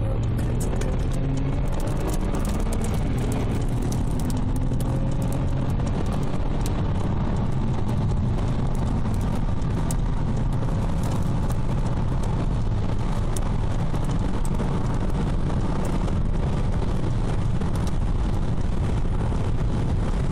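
Inside a car at highway speed under hard acceleration: the engine climbs in pitch for the first few seconds, then settles into steady road and wind noise.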